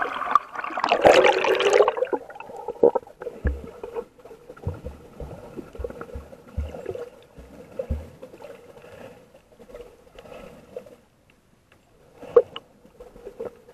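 Water splashing loudly for the first couple of seconds as a swimmer moves in the water, then the muffled, gurgling sound of being underwater, with scattered dull knocks and bubbles. A brief splash comes near the end.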